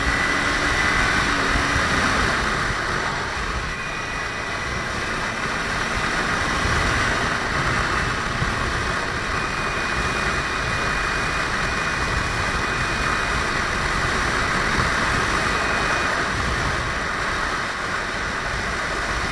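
Kawasaki Ninja 300's parallel-twin engine running steadily at cruising speed, mixed with steady wind rush at the helmet microphone.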